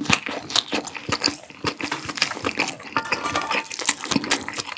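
Close-miked wet chewing of a mouthful of fried rice, with many small crackles and crunches. In the second half a wooden spoon scrapes and stirs fried rice across a griddle pan.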